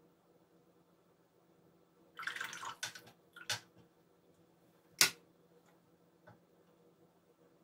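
Watercolour brush swished in a jar of rinse water for about half a second, followed by a few sharp taps, the loudest about five seconds in.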